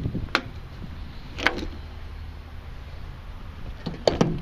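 Jeep Wrangler hood being unlatched and raised: a sharp click just after the start, another about a second and a half in, and two close together near the end, over a steady low outdoor rumble.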